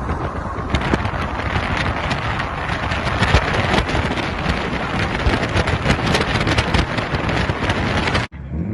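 Road and wind noise from a car travelling at highway speed, with wind buffeting and crackling on the microphone; it cuts off abruptly near the end.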